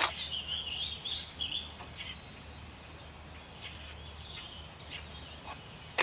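Yellow warbler nestlings begging at the nest with a high, wavering chatter for about the first second and a half as they are fed, then only faint scattered chirps. A sharp click comes at the very start.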